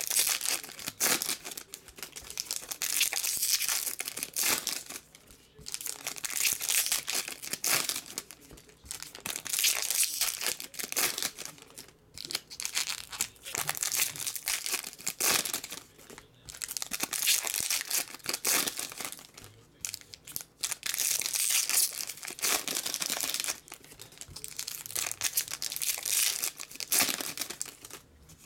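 Foil hockey card packs being torn open and their wrappers crinkled and dropped, one pack after another, in repeated bursts of crackling with short pauses between.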